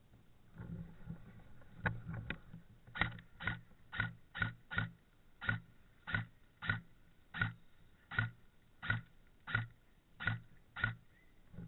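Airsoft gun firing single shots, about sixteen sharp cracks: quick pairs at first, then a steady shot every two-thirds of a second or so.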